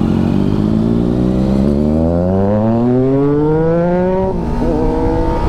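Triumph Daytona 675's inline-three engine accelerating: its note holds for a moment, then climbs smoothly through the revs in one long rising sweep. About four seconds in, the revs drop sharply and then hold steady.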